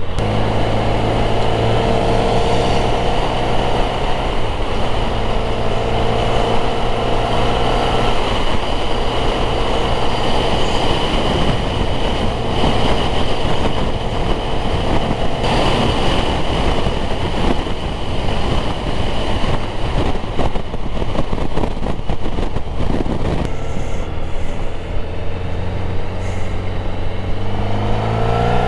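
Motorcycle cruising at steady speed: the engine's steady drone under heavy wind rush on the microphone. Near the end the wind eases as the bike slows, then the engine note rises as it accelerates again.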